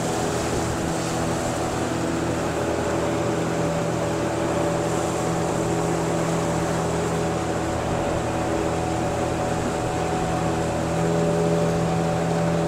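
Boat's outboard motor running steadily under way, a constant engine hum over a rush of wind and water noise, growing a little louder about eleven seconds in.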